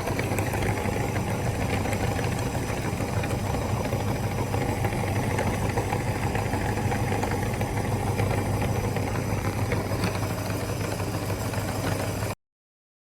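Meat grinder running with a steady mechanical hum, cutting off suddenly near the end.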